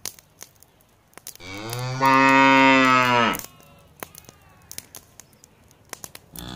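Cow mooing: one long, steady moo about a second and a half in that lasts about two seconds, and a second moo that starts near the end. Faint scattered clicks lie between the calls.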